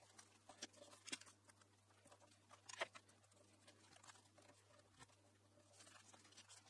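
Faint rustling and crinkling of wallpaper being pressed and folded by hand along a drawer front's edge, with scattered small clicks and a louder crackle nearly three seconds in.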